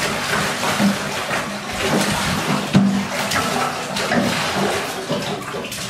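Water splashing and sloshing in a bathtub as a toddler plays in the bathwater, in irregular splashes.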